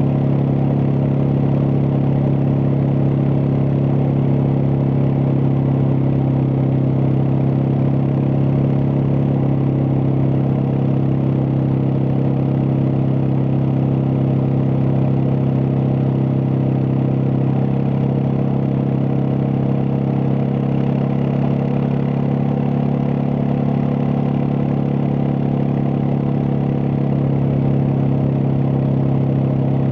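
Suzuki DR650's single-cylinder four-stroke engine running steadily, holding an even note with no change in revs.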